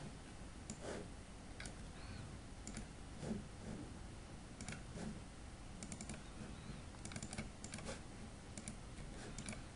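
Faint, irregular clicks of a computer mouse and keyboard, spaced about a second apart and sometimes in quick pairs.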